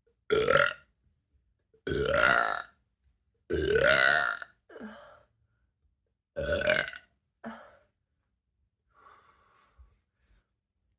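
A woman belching loudly four times over about seven seconds, each belch rising in pitch, with two smaller belches trailing after the third and fourth and a faint breath near the end. The burps are gas from drinking ginger ale.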